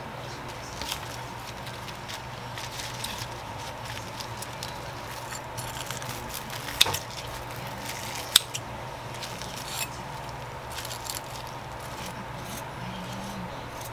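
Food being assembled by hand on a wooden cutting board: soft rustling of sliced onion, lettuce and laver sheets, and clicks of metal tongs setting down pieces of tonkatsu. Two sharper clicks come past the middle, about a second and a half apart, over a steady low hum.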